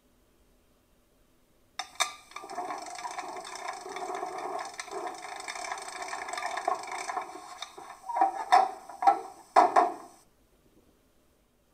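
Loudspeaker of a Gauge 1 V 160 diesel locomotive model's sound decoder playing the recorded extended shutdown sequence: after about two seconds of silence, a run of rapid clicks and mechanical clatter for several seconds, then a few separate louder knocks before it stops.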